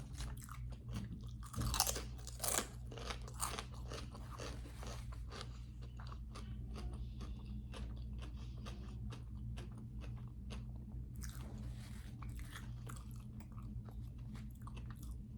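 A person chewing and crunching food close to the microphone, a run of many small crunches, over a steady low hum.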